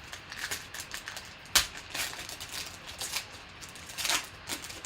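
Trading-card pack and cards being handled: a run of light clicks and rustles, with a sharp snap about a second and a half in and another burst of clicking near the end.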